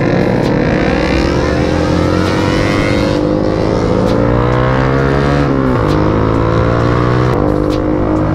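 Motorcycle engine pulling up through the revs as the bike accelerates, its pitch climbing slowly for about five seconds, then dropping sharply at a gear change and climbing again, over a steady hiss.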